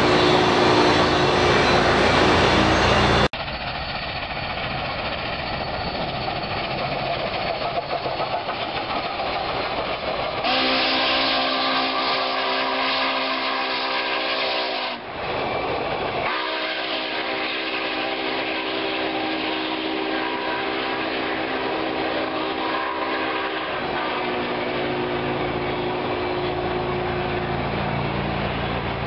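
Union Pacific No. 844, a 4-8-4 steam locomotive, and its passenger train rolling past. About a third of the way in, the locomotive's multi-tone steam whistle blows a long blast that gives way to a weaker held sounding until a little past the middle, with the steady rumble of the cars underneath.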